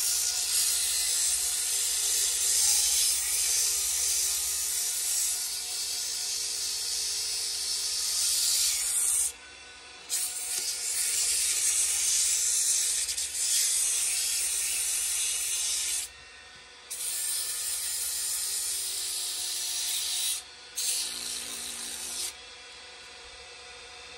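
80-grit sandpaper hissing against a canary wood handle spinning on a wood lathe, with the lathe running steadily underneath. The sanding is lifted off three times briefly and stops shortly before the end.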